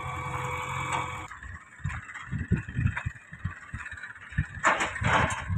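A JCB backhoe loader's diesel engine runs steadily, then cuts off abruptly a little over a second in. What follows is irregular gusty rumbling and rushing, like wind buffeting the microphone in an open field, with the loudest gusts near the end.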